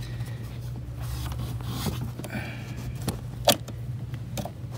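Handling noise from a freshly greased clutch pedal pushrod being worked by hand: a soft rubbing near the middle and one sharp click about three and a half seconds in, over a steady low hum.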